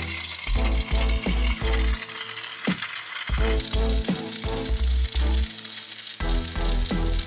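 Steady hiss of a Razorcut 45CNC plasma cutter's machine torch cutting steel plate on a Langmuir Crossfire Pro CNC plasma table, under background music with a rhythmic bass beat.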